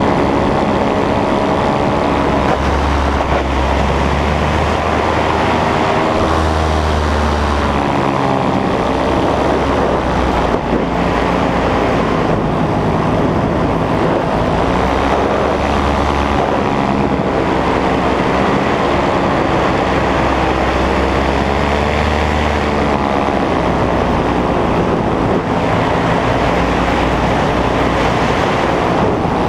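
Nitro 200 paramotor engine and propeller running steadily in flight, the pitch wavering slightly up and down as the throttle shifts.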